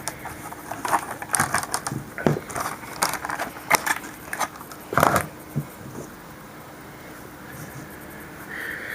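Small parts of a .22LR AR-15 conversion kit being handled: a run of clicks and short scrapes over the first five seconds, the loudest about five seconds in, then only faint room hum.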